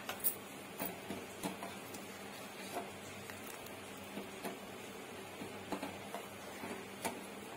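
Steel spoon stirring sugar into thick sago-and-milk kheer in a steel pot, giving a handful of light, irregular clinks and scrapes against the pot, over a faint steady hum.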